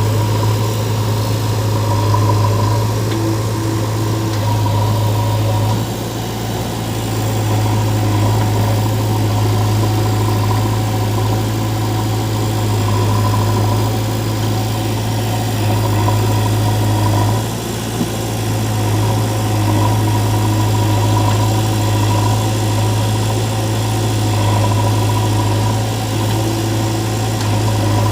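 Heavy diesel engine running steadily near idle, a loud, even low drone that dips slightly twice.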